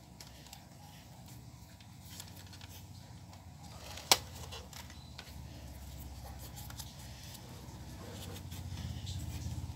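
A plastic foam-dart toy blaster being handled: small plastic clicks and rubbing, with one sharp, loud click about four seconds in, and a foam dart being pushed into the muzzle near the end.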